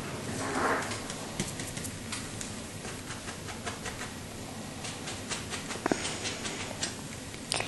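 Paintbrush tapping and dabbing on a stretched canvas: a scatter of short, light taps over a steady hiss, with a brief rustle just under a second in.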